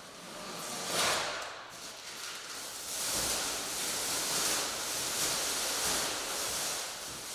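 Thin plastic sheeting being pulled down and bunched up, crinkling and rustling: a short burst about a second in, then steadier crinkling from about three seconds on.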